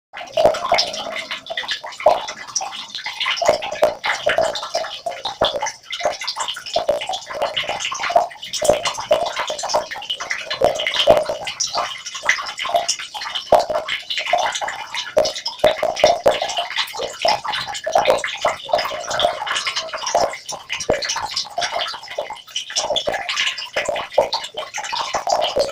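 Water trickling and splashing in a continuous, uneven patter with many small irregular plops.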